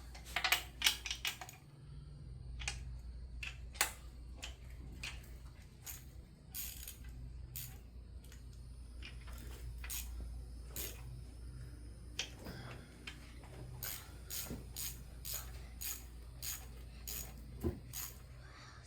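Hand tools clicking and clinking against metal engine parts in irregular single taps while bolts are worked on by hand, over a steady low hum.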